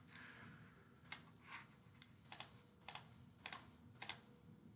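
Computer mouse clicking: about six short, sharp clicks at irregular intervals of roughly half a second, several of them in quick pairs, over faint room noise.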